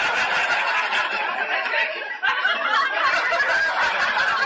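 Loud, continuous laughter that dips briefly about two seconds in and then carries on.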